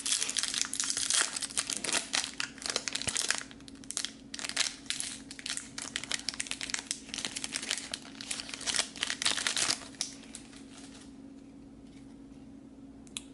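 Foil trading-card pack wrapper crinkling as it is torn open and peeled back. The crinkling is dense for the first three seconds or so, thins to scattered crinkles, and stops about ten seconds in.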